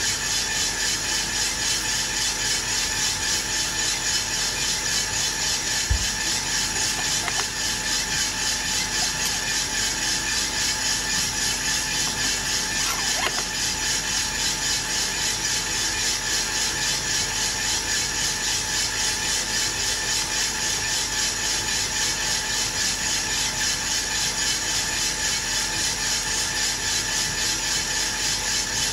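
Aillio Bullet R1 V2 coffee roaster running mid-roast: the drum turns with the beans tumbling inside while the fan runs, a steady mechanical sound with a fine, even pulse. There is one brief low knock about six seconds in. The bean temperature is around 150 °C, still in the drying stage and well before first crack.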